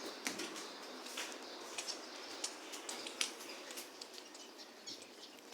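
Pet cage birds chirping with many short, scattered calls.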